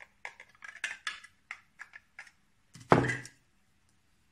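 Hands opening the plastic housing of a clamp-on ultrasonic flowmeter sensor: a run of quick small clicks and taps, then one louder knock about three seconds in as a part is set down on the table.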